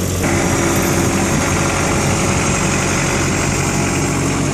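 Caterpillar 3024C T turbocharged 2.2 L diesel engine of a Cat 257B multi-terrain skid steer loader idling steadily.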